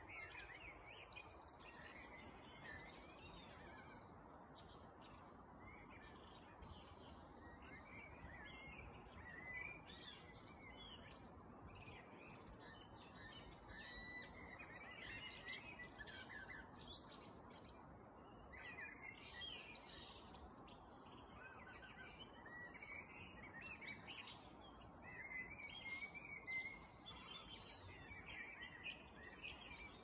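Evening chorus of several songbirds: many overlapping chirps and short song phrases, over a faint steady background hiss.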